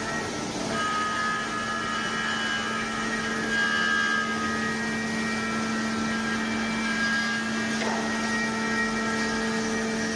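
CNC router machining a wooden insulator board: a steady motor hum under a whine of several higher tones that shift in pitch every second or two as the spindle head moves and cuts.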